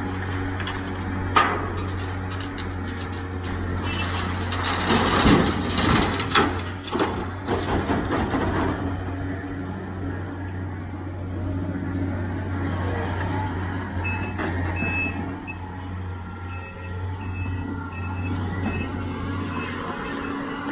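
Sumitomo SH490 excavator's diesel engine running steadily as a bucketful of earth and stones is dumped into a steel tipper-truck bed, a loud rattling rush of dirt about four to nine seconds in. Near the end a reversing alarm beeps on and off.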